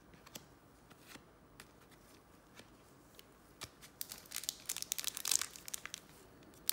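Sparse light clicks of cards being handled, then from about four seconds in a dense crinkling of a foil trading-card pack wrapper being picked up and handled.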